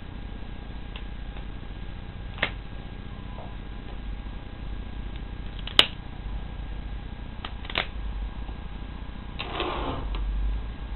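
Revolver being handled: three sharp mechanical clicks a couple of seconds apart, the middle one loudest, then a short rustle near the end.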